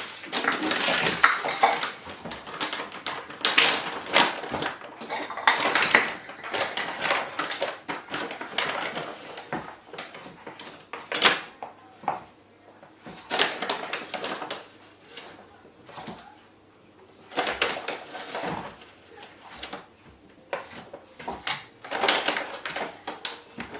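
Baking soda being measured out with a cup and tipped into a mixing bowl. There are irregular scraping and pouring noises from the powder, with clinks and knocks of the cup against the bowl. It goes quieter for a few seconds midway.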